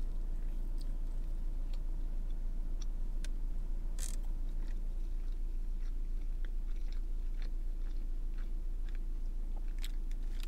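Close-up chewing of a soft pancake breakfast sandwich: wet mouth clicks scattered throughout, over a steady low hum, with one louder short noise about four seconds in.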